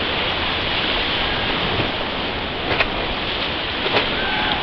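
Whitewater rapids rushing steadily around a raft, with two short sharp knocks about a second apart near the end.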